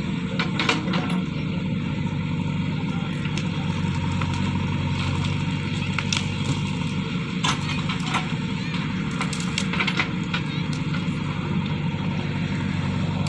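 Backhoe loader's diesel engine running steadily, with scattered sharp knocks over it.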